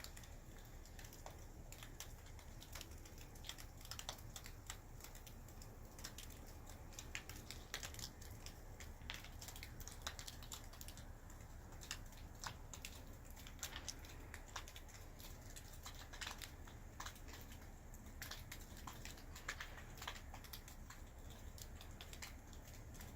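Wind-driven snow ticking irregularly against a surface, with a steady low rumble underneath.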